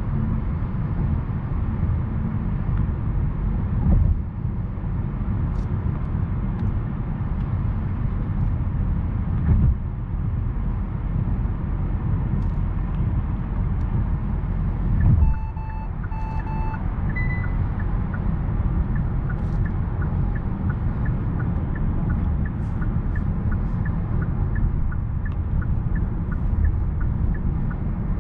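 Cabin noise of a 2022 Kia K8 G2.5 at highway speed: steady road, tyre and engine rumble. About halfway through, a double beep sounds as lane change assist engages, and then the turn-signal indicator starts ticking steadily.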